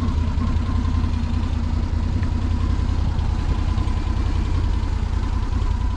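Can-Am Defender Limited's Rotax V-twin engine idling steadily, a quiet, even low run with a faint steady high note over it.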